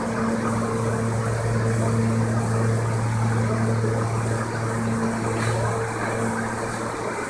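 R160A-2 subway train standing at the station platform, its auxiliary equipment and air conditioning giving a steady electric hum with a few held low tones over a wash of noise. The main low tone eases slightly about four and a half seconds in.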